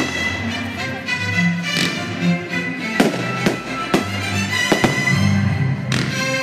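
Fireworks display: a scattered string of sharp bangs from bursting fireworks, about seven in all, over continuous music.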